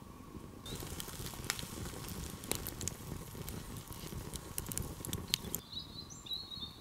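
Wood campfire crackling, with many sharp pops and snaps, starting suddenly just under a second in and dropping away about five seconds in. A few faint, short high chirps follow near the end.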